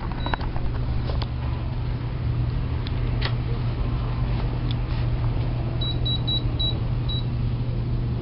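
A steady low hum with a few scattered clicks and knocks. About six seconds in, a checkout register at the shop counter gives five short, high beeps in quick succession, as keys are pressed.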